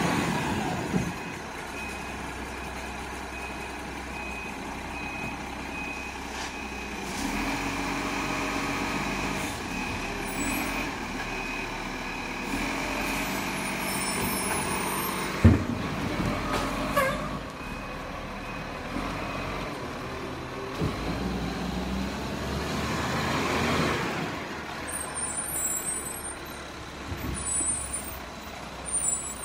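Rubbish truck's diesel engine running, with a reversing beeper sounding until about seven seconds in and a single sharp bang about halfway through.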